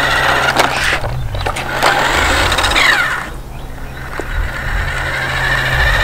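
Toy remote-control UTV driving on concrete: the steady whir of its battery motor and gears with tyre noise, dipping briefly in the middle.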